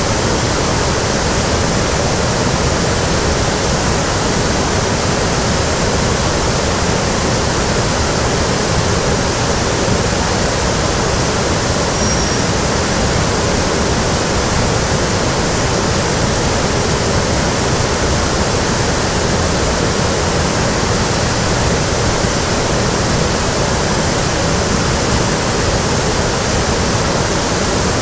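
Small forest waterfall and rocky stream cascade rushing loudly and steadily.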